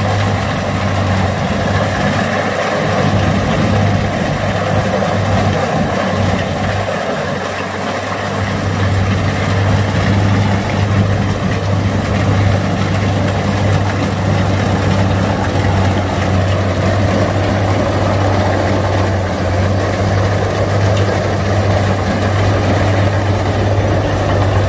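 Kubota DC-60 combine harvester's diesel engine running steadily under load while it cuts and threshes rice, with the clatter of its threshing machinery.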